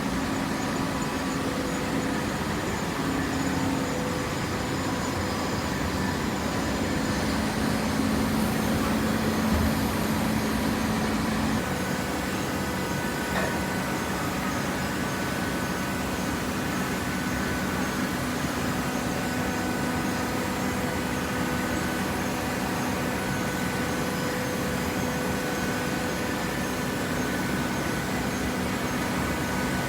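Hydraulic baler's motor and pump running with a steady hum; the tone of the hum shifts slightly about twelve seconds in.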